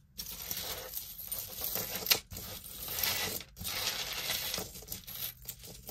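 Pieces of metal jewelry clinking and rattling against each other as they are handled and sorted, with one sharper clink about two seconds in.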